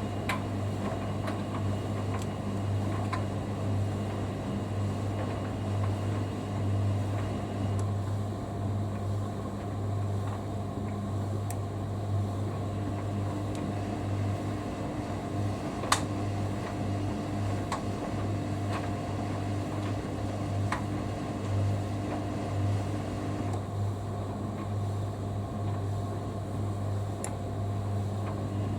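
Hoover Dynamic Next front-loading washing machine spinning, with a steady motor hum and the cabinet holding still. A higher tone joins from about 13 to 23 seconds in, and there is a single click near 16 seconds.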